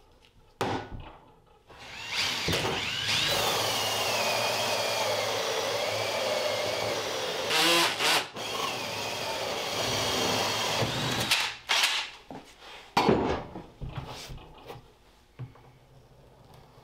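Cordless drill running under load as it bores into the top of a polyethylene RV holding tank, a steady motor whine that sags and wavers for about nine seconds. A sharp clatter comes partway through, and a few knocks follow after the drill stops.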